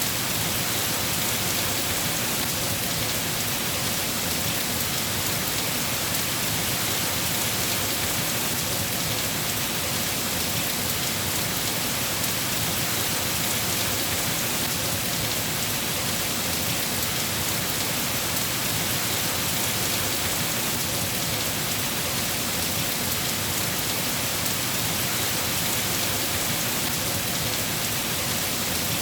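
Steady heavy rain falling and pattering on surfaces, an even, unbroken hiss with no thunder.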